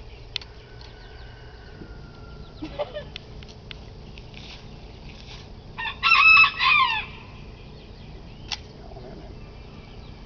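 A rooster crows about six seconds in, a high call in two parts. A few faint clicks come before it.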